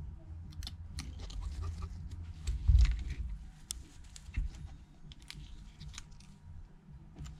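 Small sharp clicks and taps of a screwdriver and parts on an opened iPhone XR being handled on a rubber work mat, with a dull knock a little under three seconds in.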